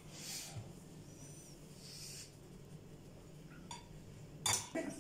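Metal serving utensil clicking against a plate as sandwich filling is scooped into bread rolls. There is one short click a little before four seconds and a louder cluster of clicks just before the end, over soft rustling and a low hum.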